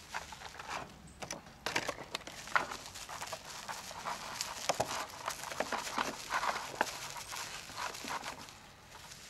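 Bubble wrap and a clear plastic sleeve being handled and folded by hand: an irregular run of crinkling and crackling with small sharp clicks.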